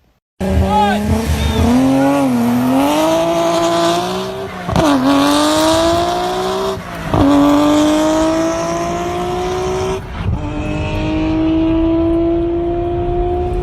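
Racing car engine accelerating hard through the gears: a rising pitch that drops back and climbs again at each of three gear changes.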